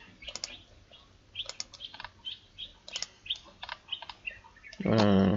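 Scattered computer mouse clicks and key taps, with small birds chirping in the background. Near the end comes a short, louder low hum lasting about half a second.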